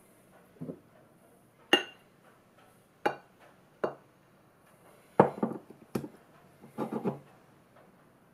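Glass bottles and a glass dish clinking and knocking on a countertop as they are handled and set down: about seven sharp knocks, some doubled, the loudest about five seconds in.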